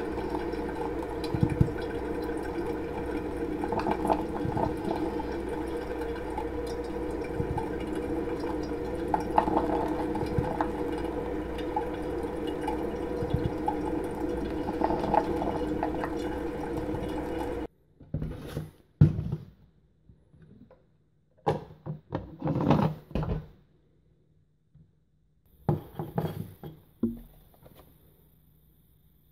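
Steady liquid noise of a drip coffee maker brewing into its carafe. It cuts off suddenly about two-thirds of the way in, followed by a few scattered light knocks and clinks.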